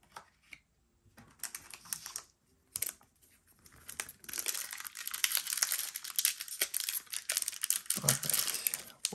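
Foil wrapper of a Pokémon booster pack crinkling as it is handled: a few short crinkles in the first three seconds, then steady crinkling and tearing from about four seconds in as the pack is torn open.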